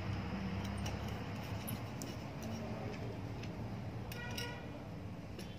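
Small metal clicks and ticks, a few scattered ones, as a nut, washer and screws are handled and fitted on an electric iron's metal soleplate, over steady low background noise.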